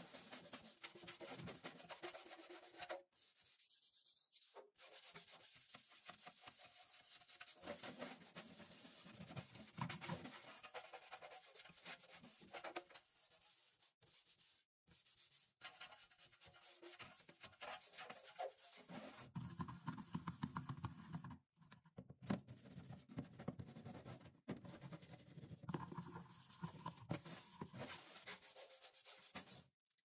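Round-headed dish brush scrubbing a stainless steel sink spread with cleaning cream: the bristles rub back and forth over the metal in quick strokes. The sound stops briefly several times.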